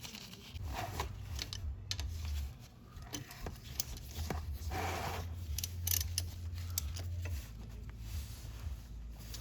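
Light clicks and rattles of a socket wrench and metal parts being handled at an ATV's crankcase drain plug, over a low hum.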